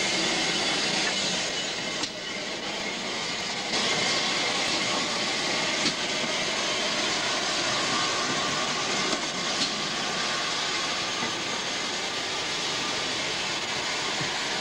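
Steam locomotives standing in steam, with a steady, loud hiss of escaping steam.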